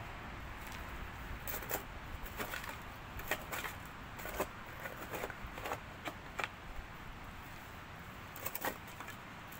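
Hand digging in stony, rooty ground: irregular light knocks and scrapes of a digging tool against earth and stones, bunched through the first two-thirds and then sparser.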